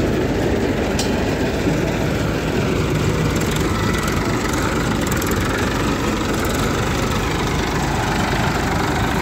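Tractor diesel engines running steadily under load, driving soil loader machines that cut and lift earth into a trolley. A single brief click about a second in.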